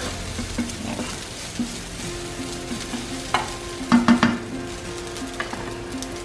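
Garlic fried rice sizzling softly in a nonstick pan while a plastic spatula stirs and scrapes it, with a louder pair of scrapes about four seconds in.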